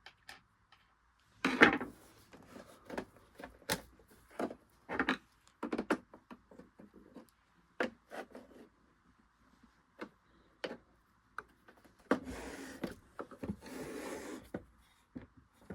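Hands working on a Singer Genie sewing machine's housing: scattered knocks and clicks, with two scraping rubs, about a second each, near the end.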